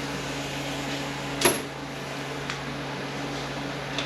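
Steady low machine hum, with one sharp click about a second and a half in and a couple of faint ticks later.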